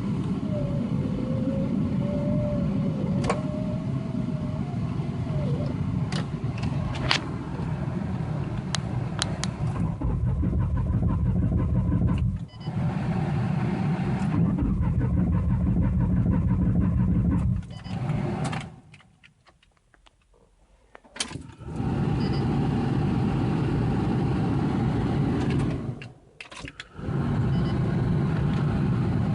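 Starter cranking a 1993 Ford Taurus SHO's 3.0 L Yamaha V6 in several long bursts. The engine turns over steadily but never fires: it cranks like it wants to start but won't. There is a short pause of near silence about two-thirds of the way through.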